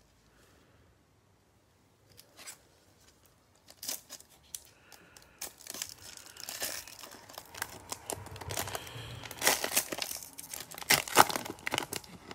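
Foil trading-card pack wrapper crinkling and tearing as gloved hands struggle to rip it open. It is almost quiet for the first couple of seconds, then the crackling comes in fits and starts and is loudest near the end.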